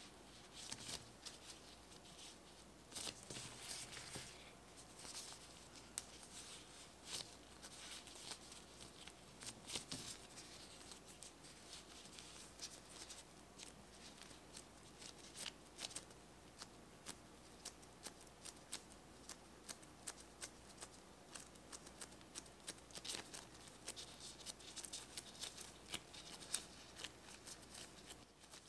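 Faint rustling and crinkling of disposable plastic gloves, with soft pats and presses of milk bread dough being folded and shaped by hand on a silicone baking mat. These come as irregular light clicks and rustles throughout, with a low steady hum underneath.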